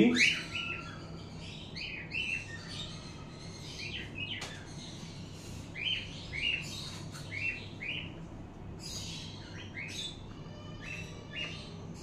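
Small pet parrots chirping: short, high chirps, one after another and at times several a second, over a steady low hum.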